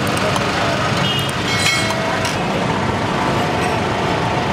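Steady din of road traffic around a busy street-food stall, with a brief high-pitched squeal about a second and a half in.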